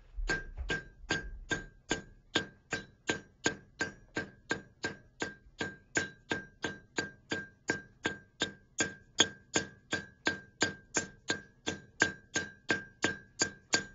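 Blacksmith's hand hammer striking a steel fishing gig on an anvil in a steady rhythm, about three blows a second, each blow ringing with a clear metallic tone.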